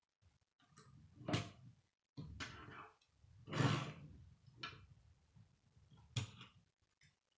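Plastic K'nex rods and connectors being handled and snapped together, a series of clicks and knocks with rustling in between; the loudest come about a second and a half in and again a little after three and a half seconds.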